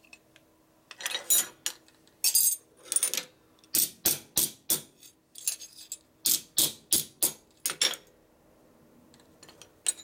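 Ball-peen hammer striking a small metal clip on a metal bench top: an uneven run of about twenty sharp, ringing metallic taps and blows, some in quick pairs, as the clip is bent and wrapped to shape.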